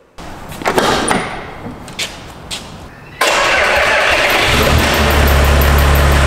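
A few knocks and clicks, then about three seconds in a cab-over truck's engine is cranked and fires, settling into a steady low idle.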